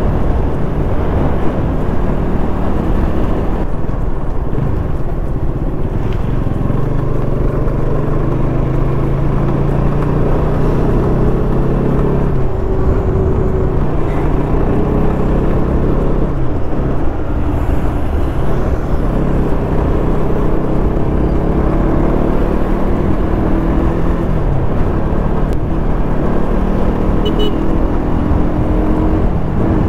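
Motorcycle engine running under way, its note climbing and dropping several times with throttle and gear changes, over steady wind rumble on the rider's microphone.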